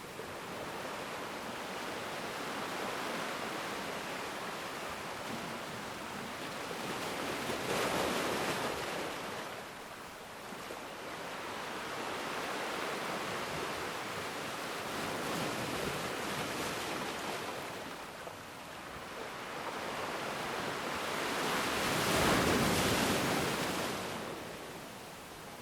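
Ocean waves breaking and washing on a shore, the surf swelling and fading in slow cycles, with two bigger waves crashing about 8 seconds in and again near the end.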